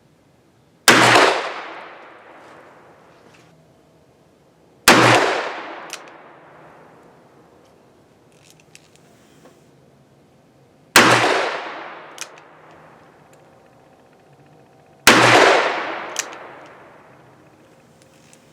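Four shots from a Smith & Wesson Model 686 .357 Magnum revolver, fired slowly about four to six seconds apart, each followed by a long fading echo, with a few faint clicks between shots.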